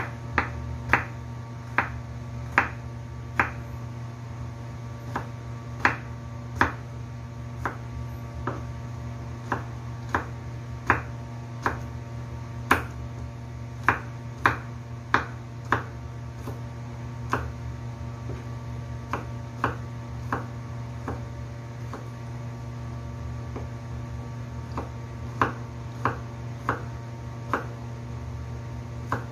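Kitchen knife cutting small pieces on a wooden chopping board: sharp, irregular knocks of the blade on the board, about one or two a second, thinning out in the middle. A steady low hum runs underneath.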